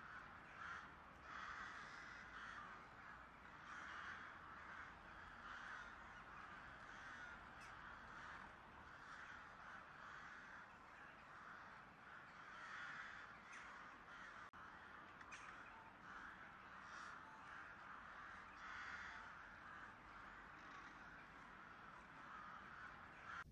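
Faint crows cawing over and over, one harsh call after another every second or so.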